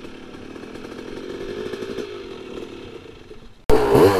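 Dirt bike engines running: a steady buzzing engine at moderate level, then an abrupt jump near the end to a close, much louder dirt bike engine whose pitch wavers up and down as the throttle is blipped.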